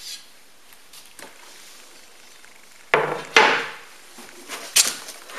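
A metal 3D-printer frame set down on a wooden table: two sharp knocks about three seconds in, then rustling and a few sharp clicks from hands rummaging in the cardboard box.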